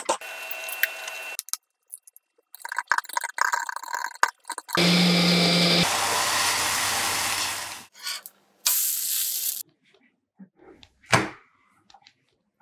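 Knife chopping tomato on a cutting board in quick taps, then dosa batter poured onto a hot tawa and sizzling loudly for about three seconds.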